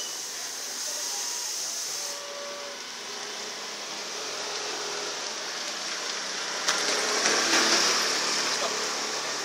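Steady hiss of street background noise, swelling louder for a couple of seconds about seven seconds in.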